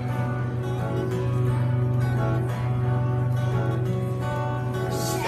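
Acoustic guitar playing on its own, an instrumental passage with no singing.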